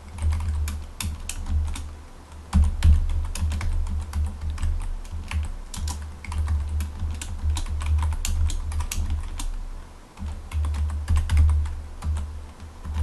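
Typing on a computer keyboard: a fast run of key clicks, with a short pause about ten seconds in.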